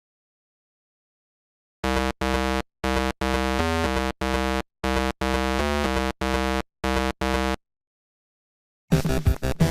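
Short electronic keyboard tune of separate, clipped notes, starting about two seconds in and stopping after about six seconds; a busier piece of music begins near the end.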